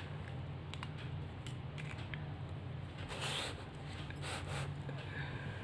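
Paper notebook being slid and handled on a tabletop: two short rustling scrapes, about three and about four and a half seconds in, among a few light taps, over a steady low hum.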